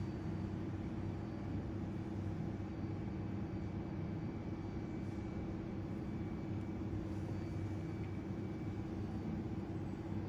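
A steady low hum over a faint hiss of background noise.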